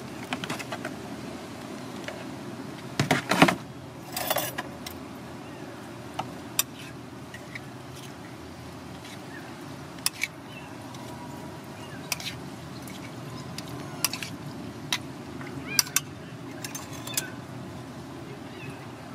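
Scattered sharp clicks and clinks of utensils against a ceramic plate as ketoprak is put together, loudest in a quick cluster about three seconds in. A steady hum of street traffic runs underneath.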